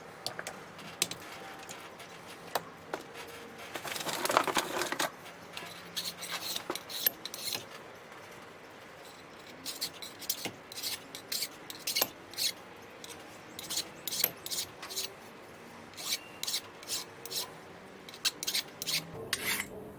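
Hand work on metal at a workbench: scattered light metallic clicks and scrapes, with a longer rasping scrape about four seconds in.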